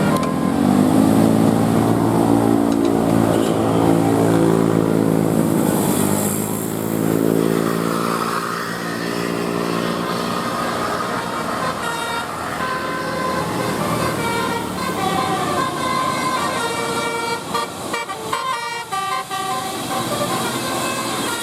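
A bus engine running loudly as the bus passes, its pitch bending. From about eight seconds in, a bus's telolet horn plays a quick tune of short changing tones.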